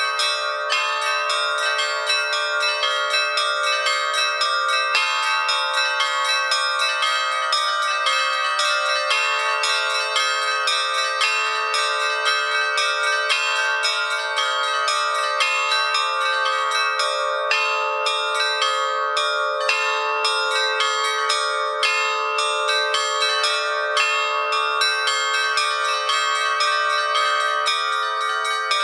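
Bells ringing in a rapid, continuous sequence, with fresh strikes every fraction of a second over many overlapping tones that ring on.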